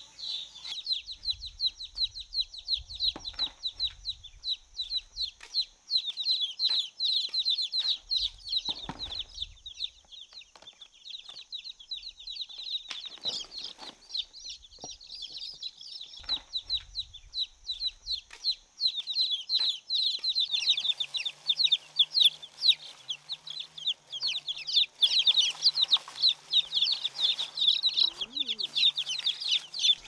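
A brood of baby chicks peeping nonstop, a dense chorus of rapid high-pitched peeps that grows busier near the end.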